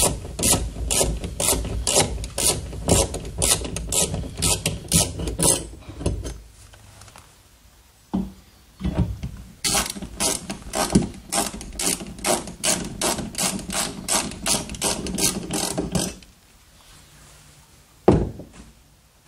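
Ratcheting screwdriver clicking in a steady rhythm, about three clicks a second, as screws are driven through a metal shelf bracket into the wall; the clicking stops for a few seconds, then starts again for the next screw. A single knock near the end as a level is set against the bracket.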